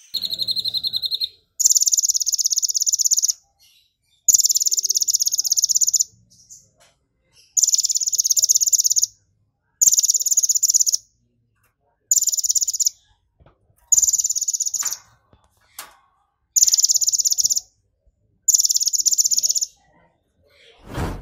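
Caged purple-throated sunbird singing a series of about nine high, buzzy trills of very fast pulses, each about a second or more long with short pauses between: its imitation of the 'belalang emas' golden grasshopper. A thump comes near the end.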